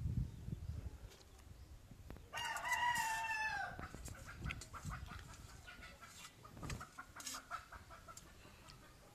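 A rooster crows once, starting about two seconds in and lasting about a second and a half, followed by fainter short clucking notes.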